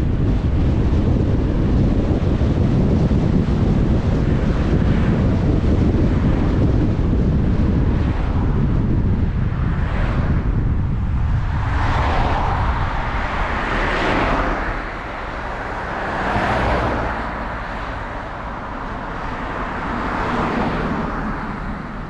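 Car driving on a road: a steady low rumble of tyres and engine. About halfway through the rumble eases and gives way to several rising and falling whooshes, about two seconds apart.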